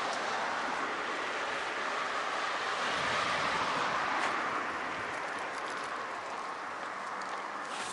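Steady road traffic noise, swelling as a vehicle passes about three to four seconds in, then easing off.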